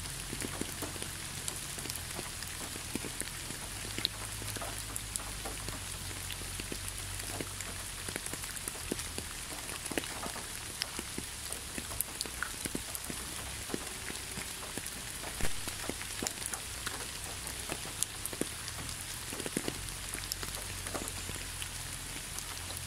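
Steady rain falling on a wet surface: an even hiss with many scattered close drops ticking, one louder drop about fifteen seconds in.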